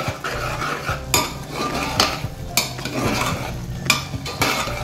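A ladle stirring cluster beans in a pressure cooker, scraping and clinking against the metal pot several times.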